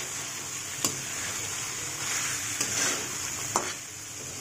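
Chana masala frying with a steady sizzle in a metal kadhai while a spatula stirs and scrapes through it, with a couple of sharp clicks of the spatula against the pan.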